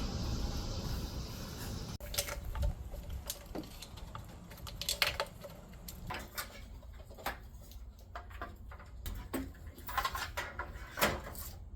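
A steady low hum that cuts off about two seconds in, then scattered light clicks and knocks of parts being handled and set down.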